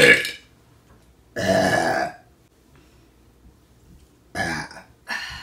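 A woman burping several times: a short, loud burp at the start, a longer one lasting nearly a second about a second and a half in, and two shorter burps near the end.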